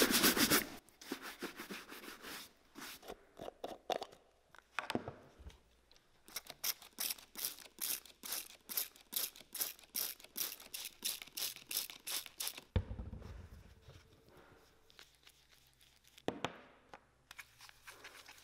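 Brisk strokes of a shoe brush over a dirty leather work boot, dusting it off. After a pause comes a quick run of spritzes from a trigger spray bottle wetting a tin of saddle soap, then a dull knock. Near the end a brush starts swirling the wet saddle soap into a lather.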